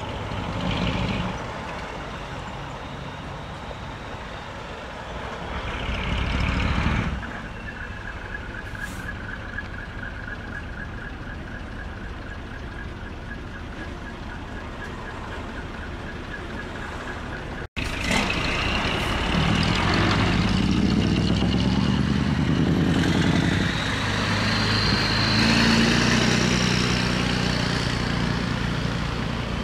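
Diesel engines of decorated Japanese trucks running as they drive slowly past. After a cut, a louder truck engine revs, its pitch rising and falling, through a split exhaust manifold (mani-wari).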